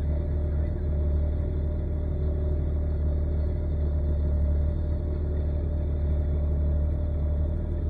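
Off-road vehicle running with a steady low rumble.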